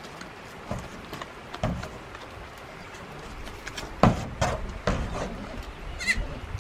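Goats moving about: scattered hoof knocks and clatter, the loudest about four seconds in, followed by a few more, with a short high chirp near the end.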